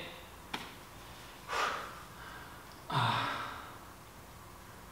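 A man breathing hard while holding a wall sit: two heavy, rushing exhales, about one and a half and three seconds in. A single faint click comes about half a second in.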